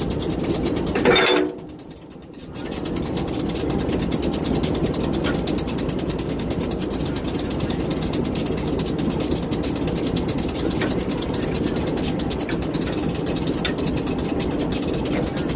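Diesel-electric locomotive engine idling steadily close by, with a few faint metallic clinks from a screw coupling being wound tight by hand. The sound drops away briefly near the start.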